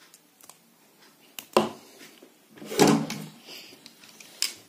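Cutters and pliers working the hard plastic housing off a 3.5 mm earphone plug: a few sharp snaps and clicks, the loudest about a second and a half in and around three seconds in.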